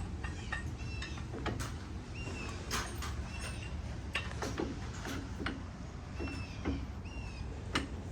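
Hand tools clicking and tapping against metal parts while a tractor's hydraulic cylinder is taken apart, several sharp knocks over a low steady rumble, with a few short high chirps in between.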